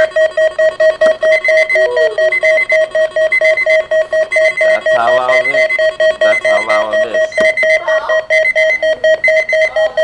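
Weather alert radio sounding its alert: rapid, even electronic beeping, about four beeps a second. It is set off by the Required Weekly Test on NOAA Weather Radio.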